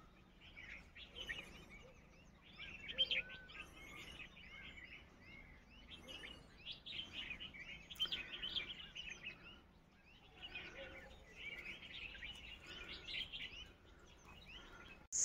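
Faint birdsong: small birds chirping and twittering in bouts with short lulls.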